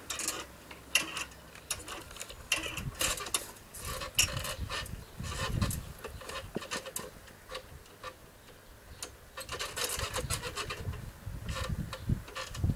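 Handling noise: scattered clicks and short rustles as banknotes and a cushion are handled on a garden swing, with a few dull low thumps about halfway through and near the end.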